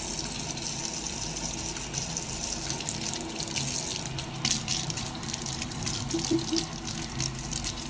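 Running water, a steady rush with many short splashes.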